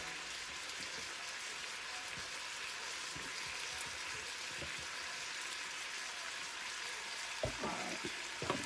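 Food frying in a pan, a steady sizzle, with a few soft knocks near the end.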